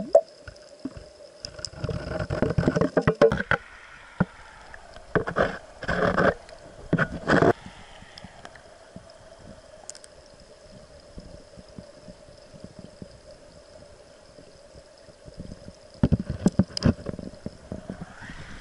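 Muffled underwater stream noise picked up by a submerged camera in its waterproof housing, with a steady low hum. It is broken by three spells of knocks and scrapes from handling the housing against the rocks, near the start, in the middle and near the end.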